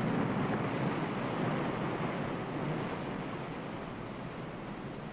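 Steady rushing, rumbling noise that eases slightly in loudness over the few seconds.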